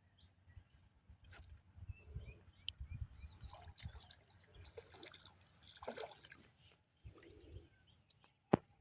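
Faint water splashing and sloshing against a small boat, with scattered rustles and a sharp knock near the end.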